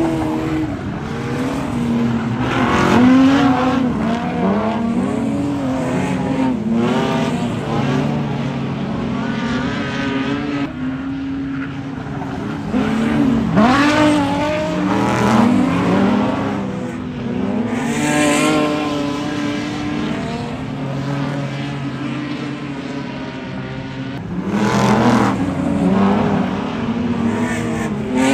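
Several speedway stock cars racing on a dirt oval, their engines revving up and down as they work through the corners. The sound swells louder three times as the pack comes past.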